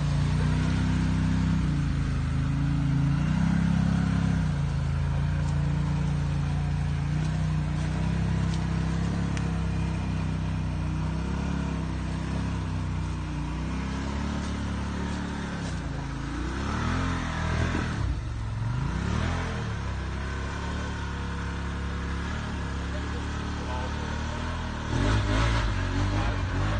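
Can-Am Maverick Sport X mr side-by-side's V-twin engine running under load, its pitch rising and falling with the throttle. There are a few quick revs about two-thirds of the way through and a louder burst of throttle near the end.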